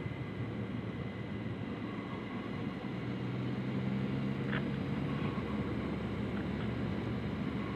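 Can-Am Spyder F3 three-wheeled motorcycle cruising at a steady speed: an even engine drone with wind and road noise rushing over it.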